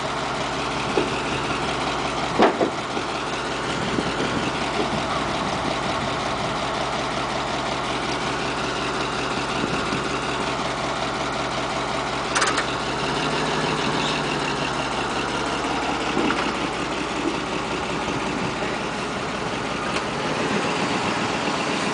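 Pickup truck engine idling steadily, with two short sharp knocks, one about two seconds in and one about halfway through.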